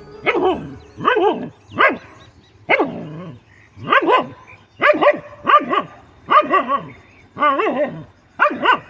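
A dog barking repeatedly, short sharp barks about one a second or a little faster, at a hooded cobra confronting it.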